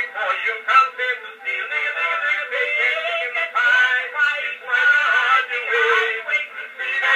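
Male voice singing, played back acoustically from a black wax cylinder on an Edison phonograph through a large horn. The sound is thin and narrow, with no bass and little treble.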